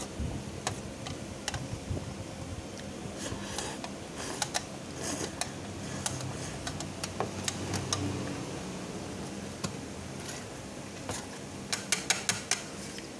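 Eating noises: wooden chopsticks clicking and scraping on a metal tray of fried noodles, with chewing. The clicks are scattered, and a quick run of louder clicks comes near the end.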